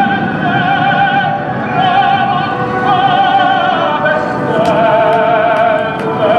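Operatic singing with orchestra: a held solo voice with a wide, regular vibrato over a full accompaniment.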